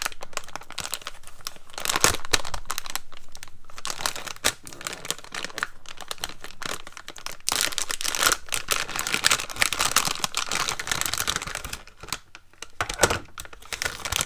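Packaging crinkling, rustling and tearing as a small product box is opened by hand, in bouts of irregular crackle with a short lull near the end.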